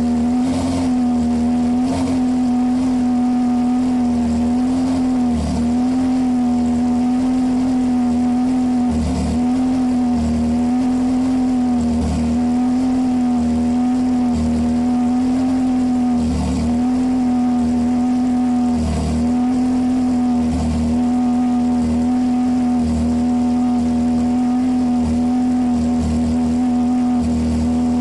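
Ferrari 360's V8 through an aftermarket MS-Racing exhaust, held at a steady raised engine speed for an exhaust noise measurement. The pitch dips slightly and briefly every second or two.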